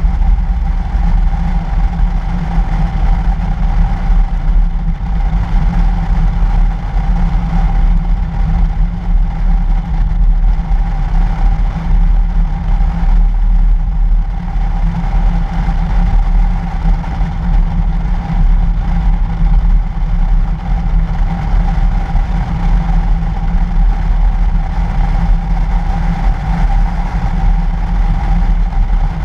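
A 2013 Toyota FJ Cruiser's 4.0-litre V6 driving steadily along a snow-covered road, heard through a camera mounted outside the body: a low rumble of engine, tyres and passing air, with a steady mid-pitched hum above it.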